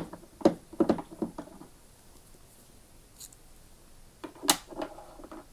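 Light, scattered clicks and taps of a screwdriver and loose screws being worked at the plastic housing of a Flymo UltraGlide lawnmower. They come in two clusters: one at the start and one from about four and a half seconds in.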